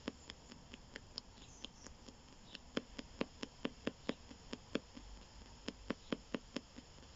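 PSB7 spirit box sweeping the AM band at a 250 ms rate: a fast run of sharp clicks, about four a second and uneven in loudness, over faint radio static.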